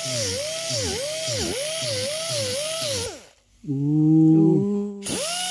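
Die grinder with a small sanding disc grinding paint off a car roof, its high whine dipping in pitch about twice a second as it bogs under pressure against the paint. About three seconds in it winds down and stops. A short, lower-pitched hum fills the gap before the grinder starts again near the end.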